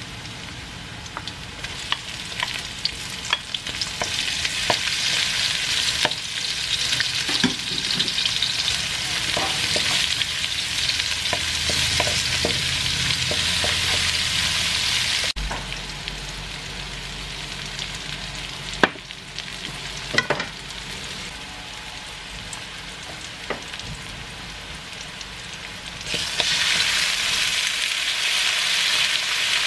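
Ginger, garlic and onion sizzling in hot oil in a pan while being stirred, with scattered ticks and a few sharp clicks of the utensil on the pan. The sizzle drops after a cut about halfway, then jumps louder near the end as raw chicken pieces go into the hot pan.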